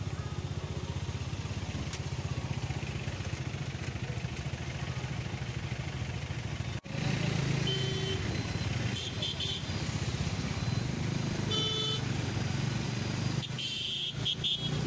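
Motorcycle engine running steadily on the move through town traffic, with several short horn beeps from the traffic in the second half. The sound drops out for an instant about seven seconds in and comes back louder.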